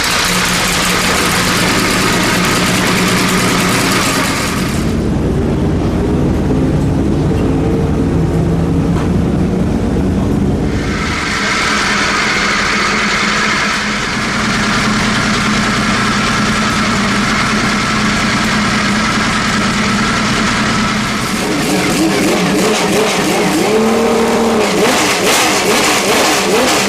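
Porsche 917's air-cooled flat-twelve racing engine running loudly at a warm-up idle. For several seconds early on the sound turns deeper and duller, and near the end the revs waver, with a short blip of the throttle.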